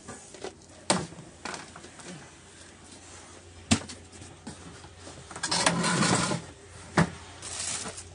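Household odds and ends being handled and set down during cleaning: several sharp knocks and clatters, with a louder rustling stretch of about a second a little past the middle.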